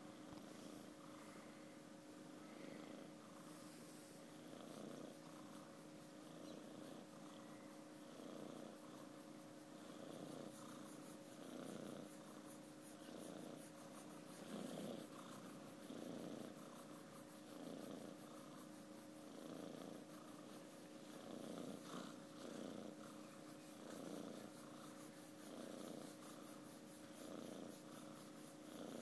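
Ginger kitten purring softly in its sleep, the purr swelling and easing with each breath, about once every second and a half.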